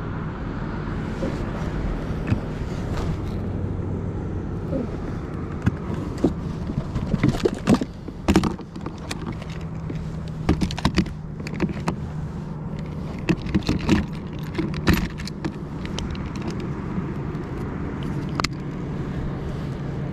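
Scattered sharp clicks and knocks of fishing gear being handled in a kayak, a lip-grip fish scale among it, over a steady low hum of nearby road traffic.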